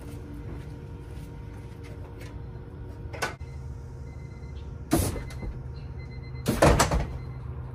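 Air-ride compressor running with a steady low hum as it fills the air suspension tanks. Two loud clunks come about five and six and a half seconds in.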